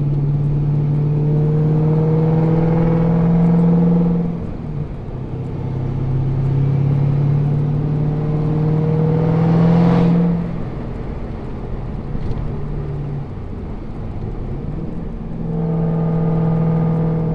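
Supercharged 6.2 L V8 of a 2011 Cadillac CTS-V with a Borla exhaust and aftermarket cam, pulling under throttle while driving. The engine note climbs steadily in pitch, drops back about four seconds in and again about ten seconds in, then climbs once more near the end.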